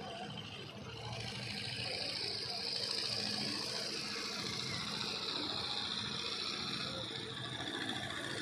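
A distant engine running steadily under a constant outdoor hiss that grows louder about a second in.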